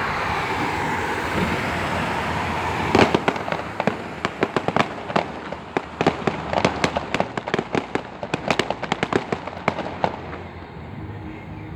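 Fireworks going off: a steady rushing noise, then about three seconds in a rapid string of sharp bangs and cracks, many a second, that stops about ten seconds in.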